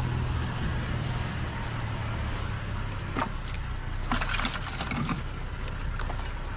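Steady low hum of an idling truck engine, with scattered clicks and rustling of scrap wire and debris being picked up, busiest about three to five seconds in.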